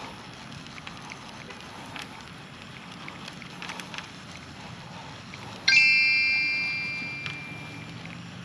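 A single sudden bright metallic ring, like a struck bell or piece of metal, about two-thirds of the way in; its several clear tones die away over about two seconds. Before it there are faint scattered ticks against a steady outdoor background, and a low hum comes in near the end.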